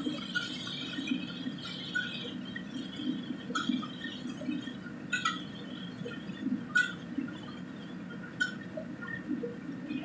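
Noodles frying in a large wok, stirred with a long-handled metal ladle, over a steady sizzling hiss. The ladle clanks sharply against the wok several times.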